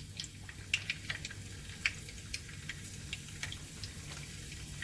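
Garlic frying in hot oil, with scattered, irregular crackles and pops.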